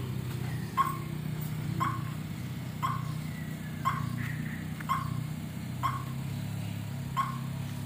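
Honda Brio's engine idling steadily just after being started remotely with a keyless push-start remote. Over it, a dog barks sharply about once a second.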